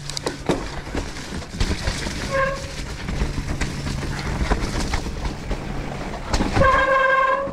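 Electric mountain bike riding down a rough, wet trail: steady tyre and wind noise with frequent knocks and clatter from the bike over bumps. Near the end comes a loud, steady squeal lasting about a second, the sound of wet disc brakes under braking.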